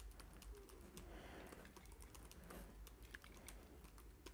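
Faint typing on a computer keyboard: a quick, uneven run of key clicks.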